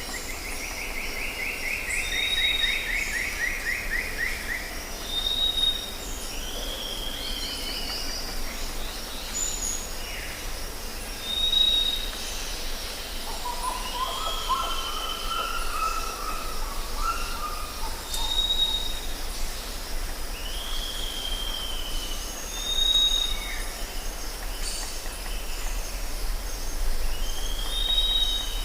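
Jungle ambience: several birds calling over a steady high insect drone. A short whistled note and a downslurred call repeat every few seconds, with a falling trill lasting about five seconds at the start and a lower warbling phrase about halfway through.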